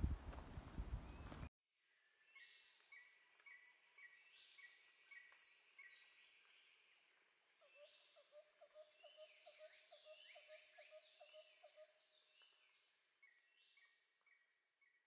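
Footsteps on a gravel track for about a second and a half, then a sudden cut to faint bush ambience: small birds chirping and whistling in quick falling notes over a steady high insect drone, with a fast low trill in the middle.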